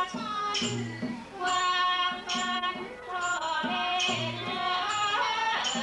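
Thai classical piphat ensemble music accompanying a rod-puppet performance: a long-held, sliding melodic line over sharp percussive strikes, with two deep drum strokes about three seconds apart.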